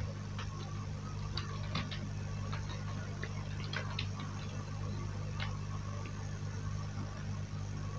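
Computer keyboard keys clicking at an uneven pace as text is typed, over a steady low hum.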